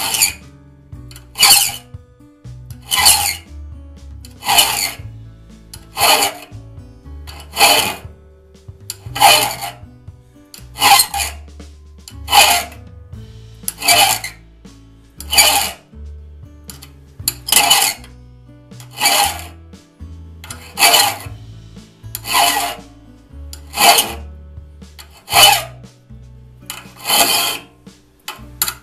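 Steel file rasping across a raker tooth of a one-man crosscut saw, one stroke about every one and a half seconds. The raker is being filed down until the little flat on its end is gone, to sit 15 thousandths below the cutting-tooth points.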